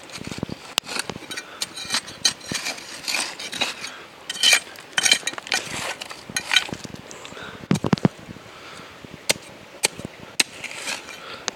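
A thin metal hand tool clinking, knocking and scraping on river stones and gravel, in irregular sharp strikes.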